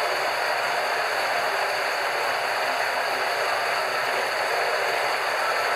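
Capybara chewing and gnawing a young bamboo stalk, over a steady rushing background noise that is the loudest thing heard.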